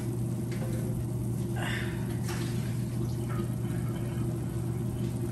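Pot of water at a rolling boil on an electric stove, bubbling steadily over a constant low hum.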